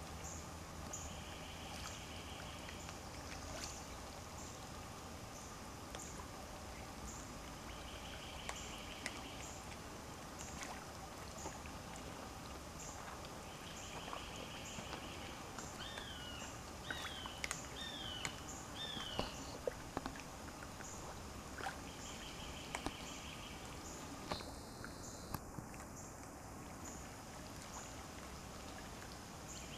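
Pond water lapping and splashing as otters swim and dive, with scattered small clicks and drips. A short buzzy trill repeats every six or seven seconds, and a bird gives four falling notes about halfway through.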